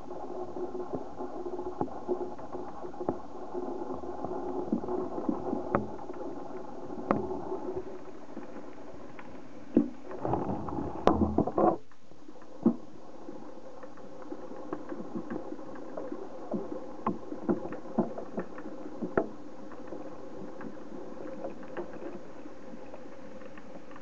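Young Djungarian hamster nibbling seeds in a ceramic food dish: small, irregular crunching clicks over a steady low hum, with a louder burst of rustling and clatter around 10 to 12 seconds in.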